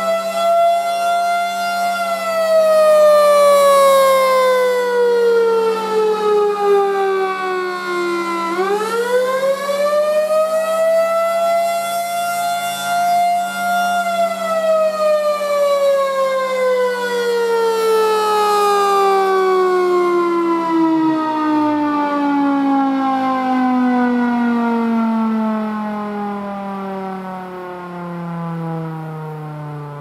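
Federal Signal Thunderbolt 1000B tornado siren sounding a short attack signal: its single tone rises and falls, climbs again, then winds down slowly in a long falling wail as the siren shuts off. A steady low hum runs beneath and stops about two-thirds of the way in. The siren's blower is leaking air through a broken valve.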